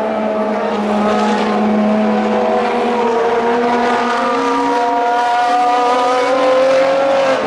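Ferrari FXX-series V12 track car at speed, its engine note a steady high-pitched scream that climbs gradually in pitch as it accelerates away.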